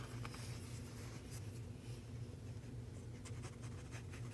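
Mechanical pencil scratching across sketchbook paper in short, quick, irregular strokes, over a steady low hum.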